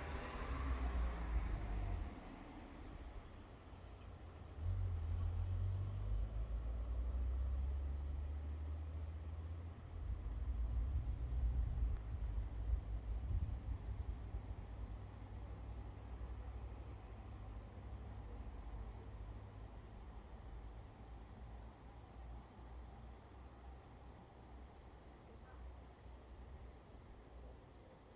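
Distant thunder rumbling in long low rolls, loudest in the first half and dying away toward the end. Under it a cricket chirps steadily at about two or three pulses a second.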